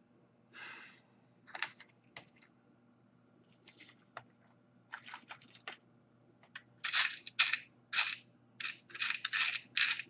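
Small metal screws clinking and rattling in a plastic compartment organizer as a hand rummages through them, in short irregular bursts that grow busier and louder over the last three seconds.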